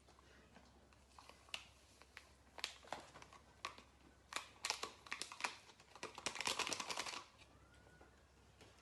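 Plastic drink-sachet packaging crinkling and crackling in a run of short, irregular clicks, thickening into a dense crackle about six to seven seconds in.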